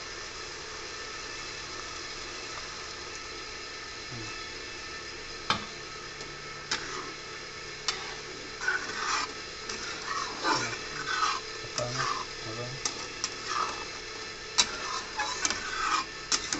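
A metal spatula stirring and scraping pork curry in an iron kadai over a steady sizzle. Single scrapes and clicks come a few seconds apart at first, then follow each other quickly through the second half.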